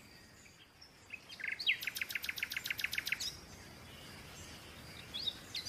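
A bird singing outdoors: a rapid trill of repeated high chirps, about seven a second, starting about a second in and lasting about two seconds, then a few faint chirps near the end.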